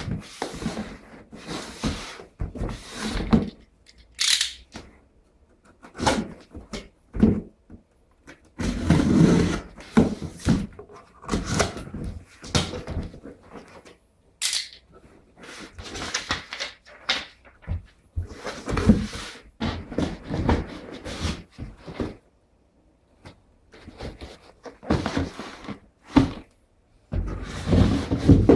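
Shoeboxes and their packaging being handled: irregular rustling and scraping with knocks and thuds, in bursts with short pauses between.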